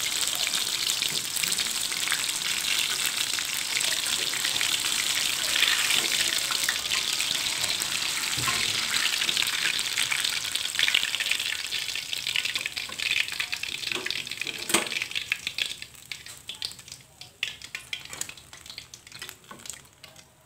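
Battered banana fritters (pisang goreng) deep-frying in hot oil in a wok: a dense sizzle full of crackles. About twelve seconds in, the fritters are lifted out on a metal skimmer, and the sizzle thins to scattered pops and crackles that die away, with one sharp knock partway through.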